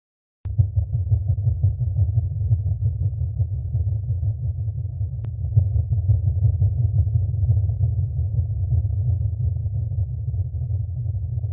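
A deep, steady rumble with no higher sounds over it, cutting in abruptly about half a second in: a low drone sound effect laid under the title crawl.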